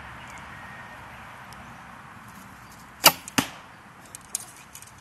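A White Feather Wingz Carbon horsebow being shot: a sharp crack of the string on release about three seconds in, then about a third of a second later a second crack as the carbon arrow strikes the target. A few faint clicks follow.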